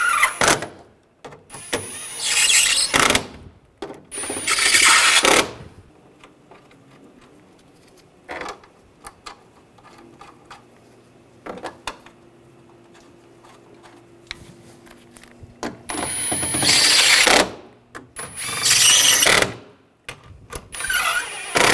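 Cordless impact driver hammering in four bursts of about a second each, tightening bolts and screws down. The bursts come in two pairs, a couple of seconds in and again about sixteen seconds in, with only small clicks and a faint hum between them.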